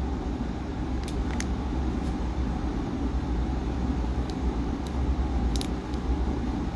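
Steady low background hum with a few faint light clicks and ticks scattered through, the sound of trading cards being handled and shuffled.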